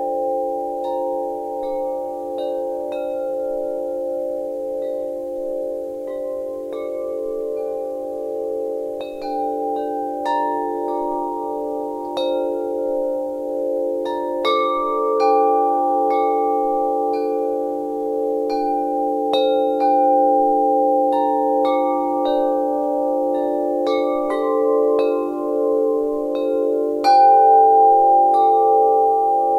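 Wind chimes ringing: several long, overlapping tones blend together, renewed by strikes at irregular moments, with one louder strike about three seconds before the end.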